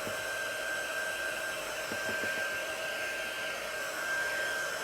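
Hand-held blow dryer running steadily: a constant rush of air with a steady whine, drying wet chalk paste on a canvas so it won't smear.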